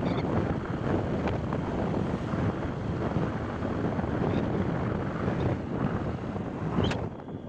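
Wind buffeting the microphone of a vehicle travelling at road speed, a fluttering rush over the low drone of tyres and engine, with one short tick near the end.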